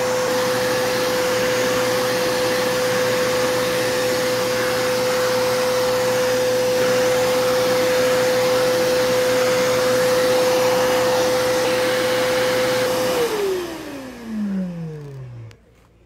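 Kenmore Progressive 21514 canister vacuum's motor running with a steady whine over the rush of air. About 13 seconds in, the whine falls in pitch and fades over about two seconds as the motor winds down.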